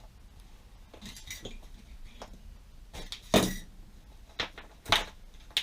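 Sharp metallic clicks and clinks of a hand tool working on vinyl-coated wire rope, stripping the vinyl coating off its end. Several separate clicks, the loudest a little over three seconds in and about five seconds in.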